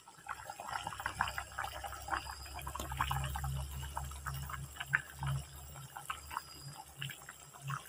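Chicken curry simmering in a steel kadai, the thick gravy bubbling with many small, irregular pops, over a low steady hum.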